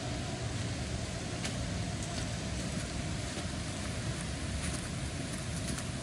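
Waterfall rushing, a steady, unbroken noise, with a few faint short high ticks over it.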